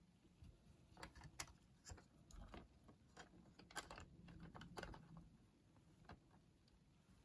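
Faint, scattered light clicks and taps of the Sanyo M3330 cassette player's circuit board and plastic case parts being handled and fitted back onto the tape mechanism, most of them in the first five seconds, with one more about six seconds in.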